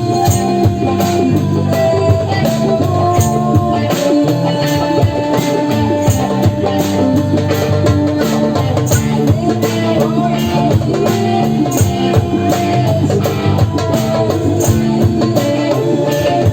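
Psychedelic live jam music: sustained bass and melodic lines over a fast, even percussion pulse.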